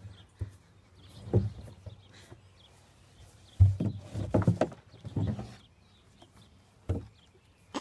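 A heavy rubber feed tub knocking against wooden fence rails and the ground as a bull butts and tosses it with its head: a series of irregular dull thumps, the loudest a little past halfway.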